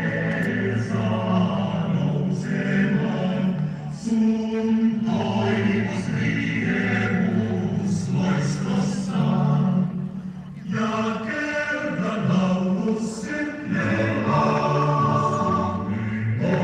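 Many voices singing together in held, sustained notes, phrase after phrase, with short breaks between them, the main one about ten seconds in.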